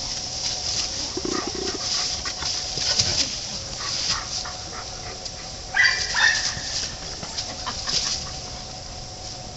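Two dogs play-wrestling in dry fallen leaves, with the leaves rustling and crackling under their feet throughout. There is a brief low growl about a second in, and two short high-pitched yelps a little before the middle.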